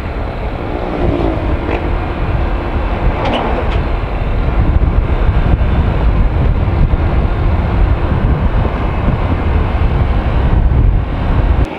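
Heavy wind rush and low rumble on the microphone of a Honda Click 125i scooter riding along a road, with the scooter's engine and tyres faint beneath it. The low rumble drops away suddenly near the end.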